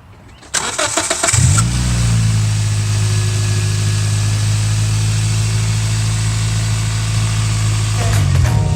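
2005 Scion xB's 1.5-litre four-cylinder engine being cranked with the starter, catching about a second and a half in, then settling into a steady idle. The suspect coil pack has been moved to another cylinder to see whether the misfire follows it. The idle ends near the end.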